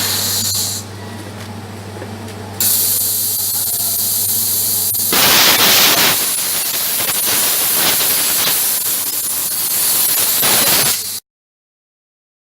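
CNC gas plasma cutting machine: a steady electrical hum with a hiss on top, then from about five seconds in a louder, rough rushing hiss of the plasma arc cutting. The sound cuts off abruptly near the end into dead silence.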